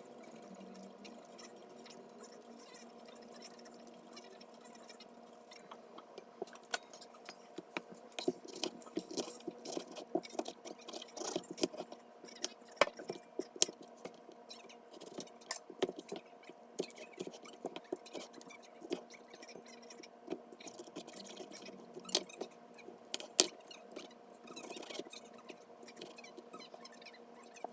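Wet squishing and irregular small clicks of soft fruit being handled and worked by hand, starting a few seconds in, over a steady hum.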